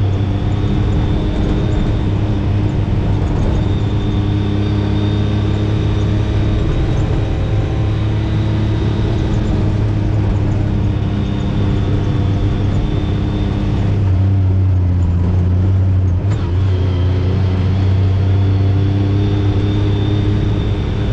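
Side-by-side UTV engine running steadily while driving along a trail, heard from on board as a continuous low hum with a steady drone of engine tones. About two thirds of the way through, the higher hiss drops away for a couple of seconds while the engine hum carries on.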